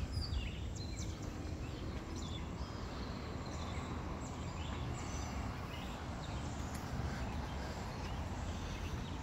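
Outdoor background: a steady low rumble with birds chirping now and then, in short scattered calls.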